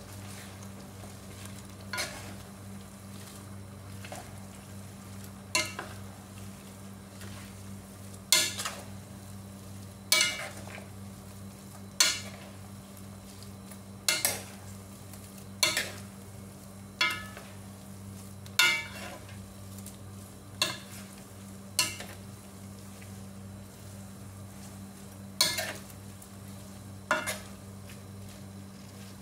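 A wooden spatula stirring a pan of simmering broth and vegetables, striking the pan with sharp clacks every one to two seconds, over a steady low hum.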